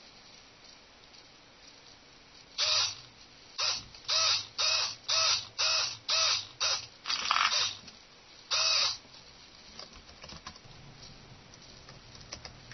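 Hobby servo motors in a small robot's arms whirring in about ten short bursts as the arms swing. The bursts come in quick succession and stop about nine seconds in, followed by a few faint clicks.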